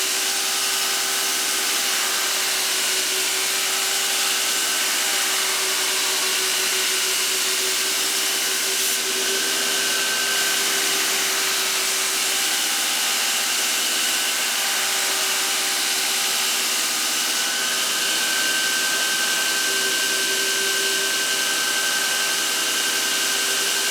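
Ex-Cell-O 3 x 110 inch metal belt grinder, its three-phase motor on a variable-frequency drive, running steadily: an even belt hiss with a steady whine that holds pitch throughout.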